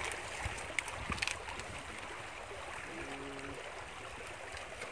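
Steady rushing of a river flowing over stones, with a few sharp clicks about a second in.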